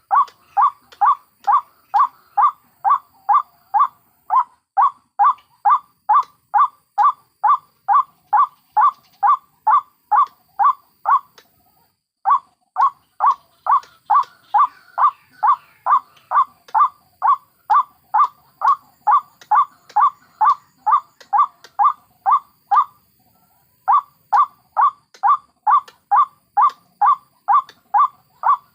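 White-breasted waterhen (ruak-ruak) calling: a long run of rapidly repeated notes, about two and a half a second, broken by two short pauses.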